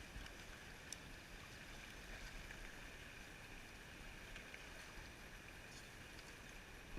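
Near silence: faint steady outdoor background hiss, with one small click about a second in.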